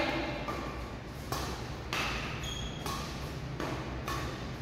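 Badminton rackets striking shuttlecocks in a quick series of about seven hits, several with a brief ringing ping from the strings, echoing in a large hall.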